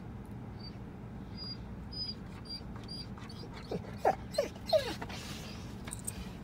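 Dog whining and whimpering in a vehicle that has stopped, the way he protests whenever the car isn't moving. A few short, high squeaks come first. Then, about four seconds in, three louder whimpers slide down in pitch, over a steady low hum.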